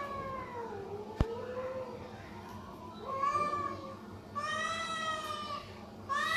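Hungry stray cats meowing loudly for food: a string of about five long, drawn-out meows, one of them lower-pitched. A single sharp click about a second in.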